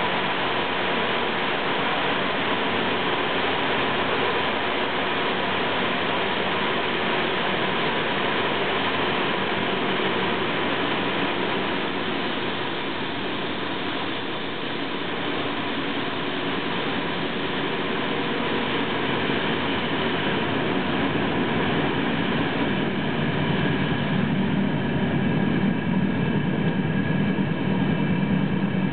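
Train running at speed through a tunnel, heard from on board: steady rumble and hiss of wheels on rail. It grows a little louder, with a low hum, in the last few seconds.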